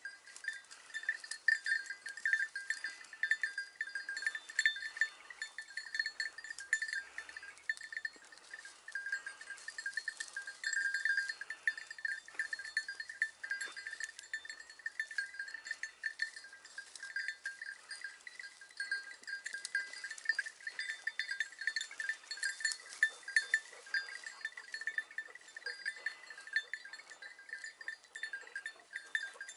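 Small metal bell on a hunting hound jingling steadily, a continuous rattle of bright tinkles while the dog works through the scrub.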